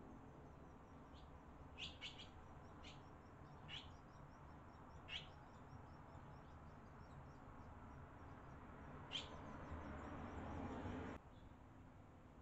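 Barn swallows at the nest giving short, sharp chirps that drop in pitch: a cluster in the first five seconds and one more about nine seconds in. A rushing noise swells over the last few seconds and cuts off abruptly about eleven seconds in.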